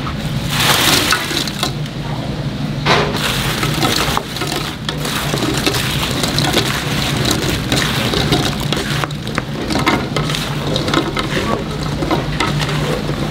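Chicken deep-frying in a vat of hot oil: a dense, steady crackling sizzle with scattered sharp clicks and knocks, over a steady low hum.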